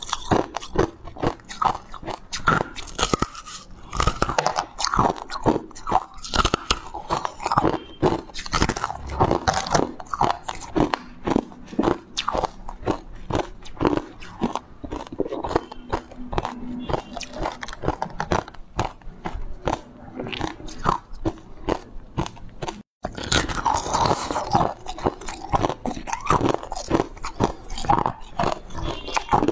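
A person biting and chewing chunks of ice close to the microphone: dense, irregular crunching throughout, broken by a split-second gap about 23 seconds in.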